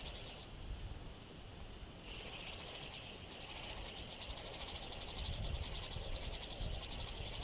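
A high, rapidly pulsing outdoor animal trill runs throughout and grows louder and fuller about two seconds in, with a low rumble on the microphone around five seconds in.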